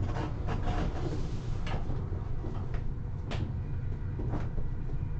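Steady low rumble of a Class 185 diesel multiple unit running, with a few short sharp clicks and knocks over it.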